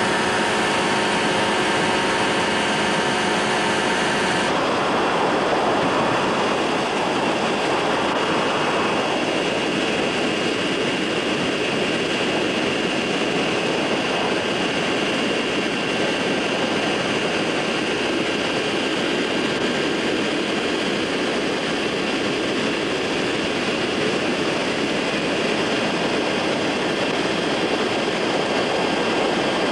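Ultralight aircraft's engine and propeller running steadily in flight, heard from on board. About four seconds in, the clear engine tone gives way abruptly to a more even, steady rushing sound.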